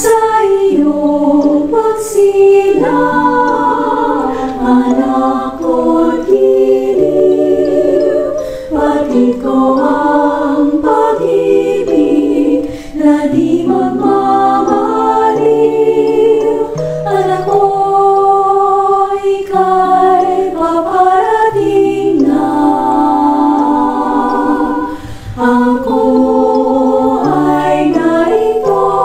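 Choir singing a Tagalog Advent hymn in close vocal harmony, with held low bass notes beneath.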